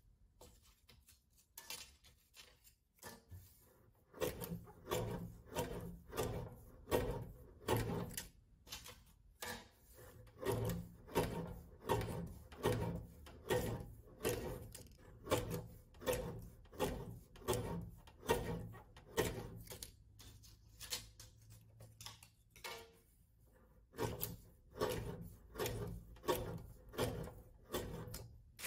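Rhythmic rubbing strokes, about two a second, starting a few seconds in, with a short pause about two-thirds of the way through before they resume.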